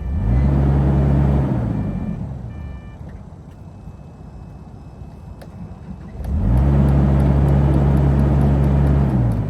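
Bobcat E85 crawler excavator's diesel engine rising in speed and settling back twice as the machine is worked. There is a short burst just after the start, and a longer one from about six seconds in that is held for about three seconds. Two short high beeps come in the quieter stretch.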